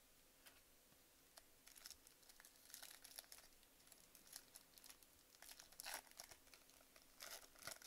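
Faint crinkling and tearing of a foil baseball card pack wrapper being opened by hand, in short irregular spells from about a second and a half in.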